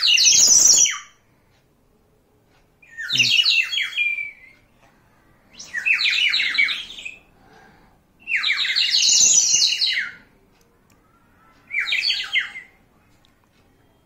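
Water-filled clay bird whistle blown in five short bursts a couple of seconds apart, each a rapid high warbling trill that mimics sparrow chirps.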